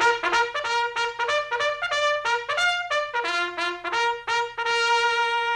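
Trumpet playing a quick tune of short, separate notes, then holding one long note from about four and a half seconds in: a radio show's brass sound bed.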